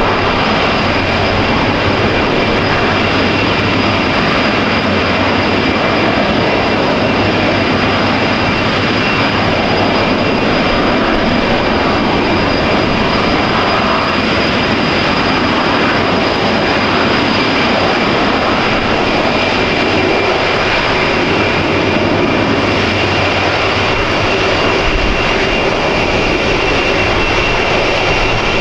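Boeing 747-400F jet engines running steadily: a loud, even jet rush with a few thin high tones held throughout, no rise or fall.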